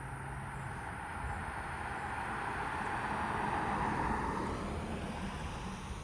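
A car passing by: tyre and road noise that swells, peaks about four seconds in, then fades.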